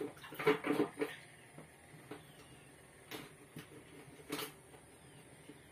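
Hand work on a stuck threaded outlet fitting in the floor of a plastic water tank, heard inside the tank. There is a run of short squeaky rubbing sounds in the first second, then faint scrapes and a couple of sharp clicks.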